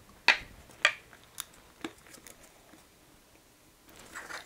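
Four sharp metal clicks as a tap is fitted and tightened into a T-handle tap wrench. Near the end comes a soft scraping as the tap starts cutting a thread into the 3D-printed plastic lid.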